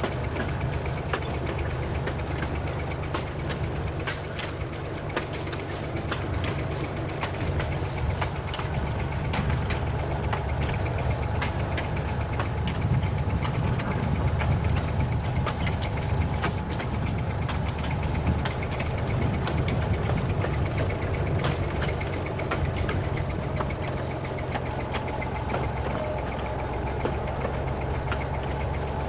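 Diesel engine of a narrow-gauge train running steadily while under way. Frequent clicks and rattles from the wheels on the track run through it.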